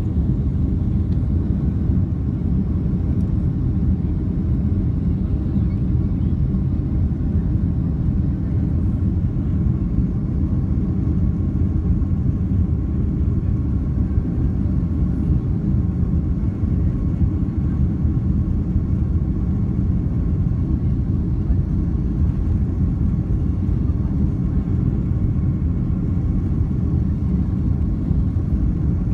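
Inside the cabin of a Boeing 767-300 taxiing: a steady low rumble of the jet engines at taxi power and the rolling airframe, with faint steady engine tones above it.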